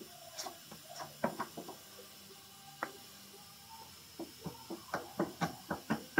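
Spreader scraping body filler onto a car body panel in short strokes: a few strokes about a second in, then a quicker run of about four strokes a second near the end.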